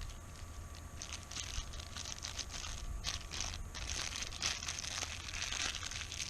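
Plastic bag crinkling and rustling as it is handled, in irregular bursts.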